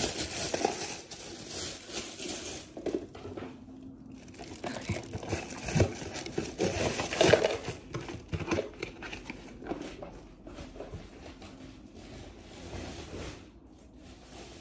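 Crinkling and rustling of a thin plastic packaging bag being handled and opened, in irregular spells, louder over the first eight seconds or so and fainter after.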